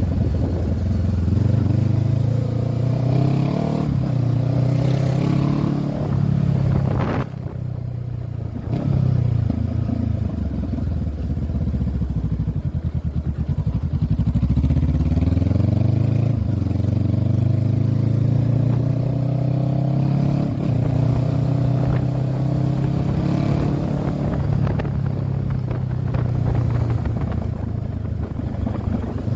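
Honda CB500F's parallel-twin engine under way, the revs climbing in several long pulls and falling back as the rider works through the gears. The engine note drops away briefly about seven seconds in, as the throttle is closed, then picks up again.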